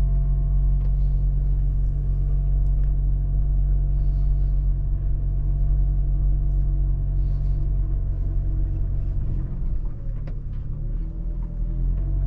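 Car engine and road rumble heard from inside the cabin as the car reverses slowly, a steady low drone with a faint whine; the drone shifts and dips briefly about ten seconds in.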